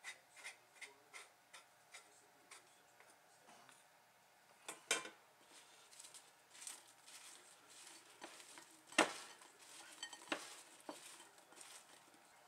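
A steel spoon clinking and scraping against a ceramic bowl while roasted potatoes are tossed with garlic and herbs. It starts with a run of light taps in the first two seconds, and the sharpest clinks come about five and nine seconds in.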